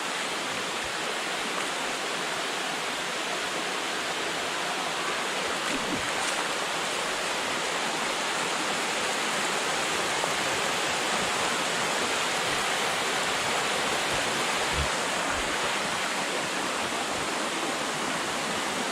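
Steady rush of river water pouring over and around the rocks at a waterfall.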